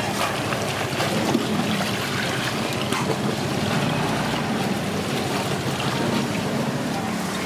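Ice water sloshing and splashing in a plastic tub as a wet tarpaulin bag is pushed and pulled through it, with small clicks and crackles over a steady low hum.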